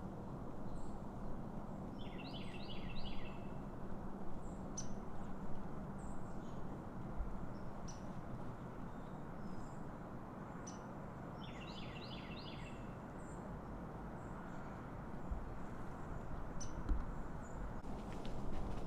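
Steady wind rush with small birds calling over it: two quick runs of chirps, about two seconds in and again about twelve seconds in, and scattered short high chips between.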